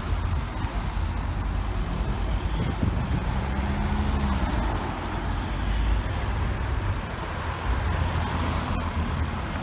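Road traffic: cars driving past on a busy town-centre road, a steady rumble of engines and tyres.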